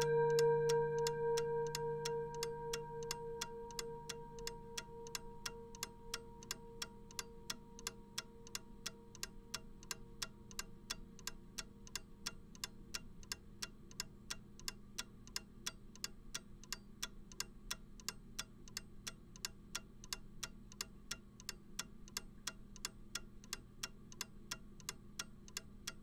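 Mechanical clock ticking steadily, while the ringing of its last chime strike fades away over the first few seconds.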